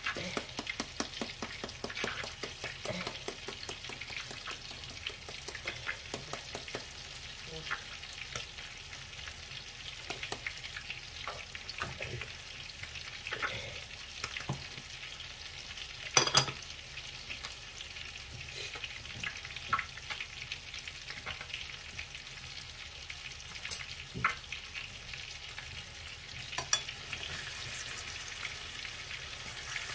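Two beef steaks sizzling in hot oil in a nonstick frying pan: a steady crackle of small spatters, with a louder pop about halfway through.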